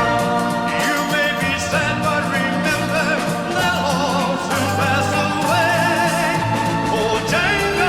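Background music: a lead melody with heavy vibrato over a sustained backing.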